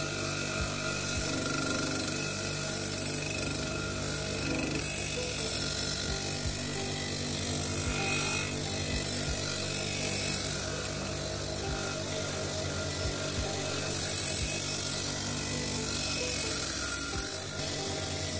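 Bench grinder's spinning steel wire wheel brushing rust off a steel bayonet blade pressed against it, a steady scrubbing hiss over the grinder's running motor. Background music plays over it.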